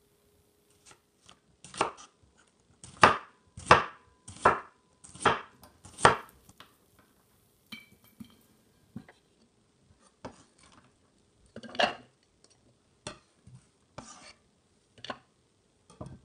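Chef's knife slicing an onion on a wooden cutting board: six firm chops about a second apart, then scattered lighter knife and board knocks.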